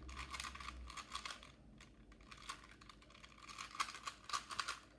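Plastic Rubik's Cube being twisted rapidly while it is scrambled: quick runs of clicking and clacking as the layers turn, thinning briefly just under two seconds in.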